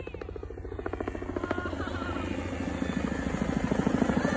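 Helicopter's rotor chop, a fast steady beat over a low engine rumble, growing louder as it flies in close.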